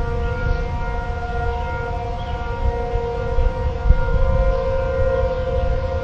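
Outdoor warning sirens sounding together during a test, holding steady tones that blend into a chord, over a low rumble.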